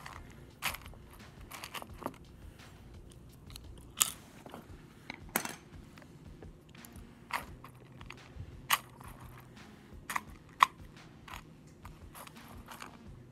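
Scattered sharp clicks and crunches of dry, slightly stale Cheerios being picked out of a bowl with wooden chopsticks and eaten, at irregular intervals.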